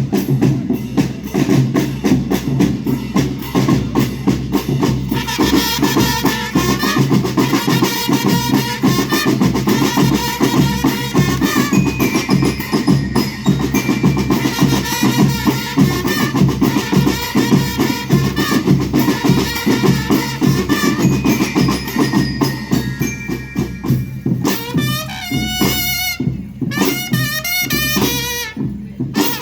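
School rhythm band playing: snare and bass drums keep a steady driving beat, and melody instruments join about five seconds in. Near the end a wavering melodic phrase stands out over the drums.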